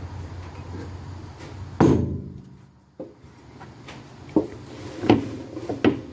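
A steady low machine hum that stops after a loud knock, followed by several sharp knocks, two of them close together near the end.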